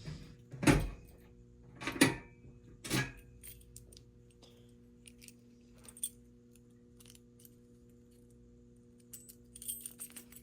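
Handling noises: three loud knocks about a second apart, then a few light clicks and a brief jingle of keys near the end, over a steady low hum.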